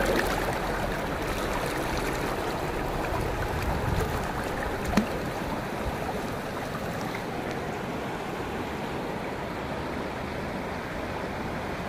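Shallow river rushing steadily over stones, with one brief knock about five seconds in.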